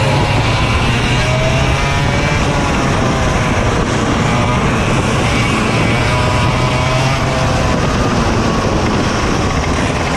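Racing kart engines at race speed, heard from onboard one kart, with other karts running close ahead. The engine notes rise and fall in pitch as the drivers accelerate out of and lift into the corners.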